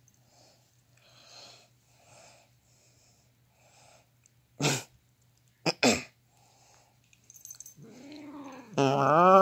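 Domestic cat meowing: two short calls about halfway through, then a long drawn-out meow near the end that rises and falls in pitch and is the loudest sound.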